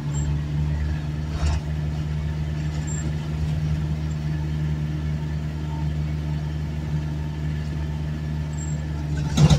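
Vehicle engine running steadily, a low even hum heard from inside the cabin while driving. There is a short knock about a second and a half in and a louder one near the end.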